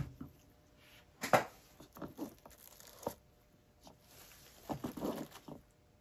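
Scattered handling noises at a paint-pouring table: a sharp knock a little over a second in, a few lighter clicks, and a short run of crinkling rustles near the end.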